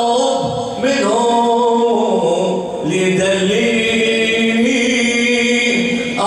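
A man chanting a mourning lament in long, held, slightly wavering notes through a microphone, with short breaths about a second in and again about three seconds in.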